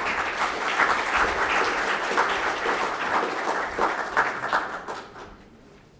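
Large seated audience applauding, the clapping dying away about five seconds in.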